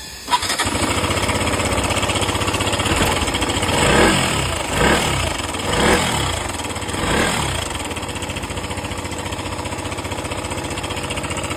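KTM 125 single-cylinder motorcycle engine running, with the throttle blipped four times in quick succession before it settles back to idle. The knocking noise comes from a faulty chain tensioner.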